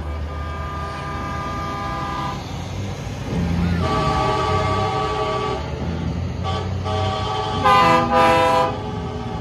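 Semi trucks sounding multi-chime air horns of the train-horn type as they pass. There are several long chord blasts, the loudest two short ones near the end, over the low rumble of diesel engines.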